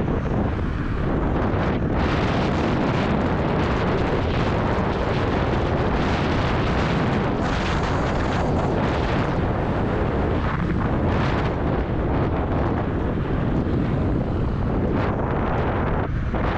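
Steady wind rushing over the microphone of a camera worn while riding an electric scooter, with a dense low rumble underneath.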